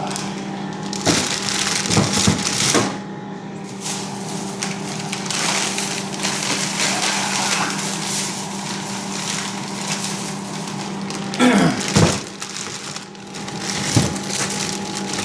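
Handling noise: rustling and crinkling with several sharp knocks, over a steady low electrical hum.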